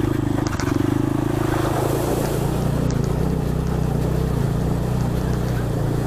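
Small 150 cc single-cylinder motorcycle engine running steadily, its note shifting lower about two seconds in.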